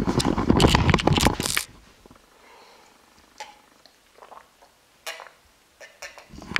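Loud rustling and handling noise for about a second and a half as a handheld camera is swung past fabric camping bags. Then it is mostly quiet, with a few faint clicks and swallows as a man drinks from a glass.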